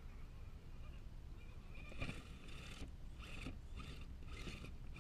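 Scale RC crawler truck's electric motor and geared drivetrain whining in four short throttle bursts, starting about two seconds in, as the truck crawls over logs.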